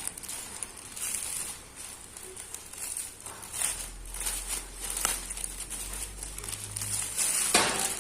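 Plastic packaging crinkling and rustling in irregular bursts as it is handled, with a louder crackle near the end.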